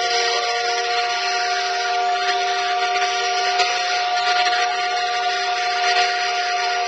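Steam whistle blowing a steady chord of several tones over a loud rush of hissing steam.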